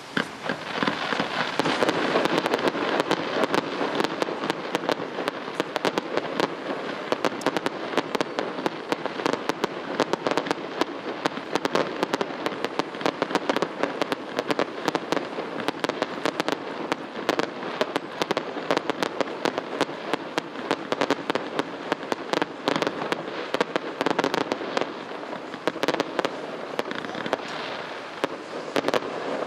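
Fireworks display going off: a dense, continuous crackle packed with many sharp pops, starting suddenly.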